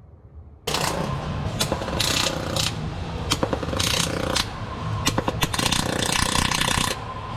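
Wire-feed (MIG) welder laying weld on the car's new sheet-steel floor panels, crackling in several bursts that start abruptly about a second in and stop near the end.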